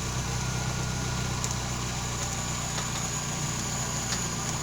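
VW Gol G4 engine idling, with the tapping of its evaporative canister purge valve on the passenger side. This tapping comes from the canister valve and is easily mistaken for a noisy valve lifter.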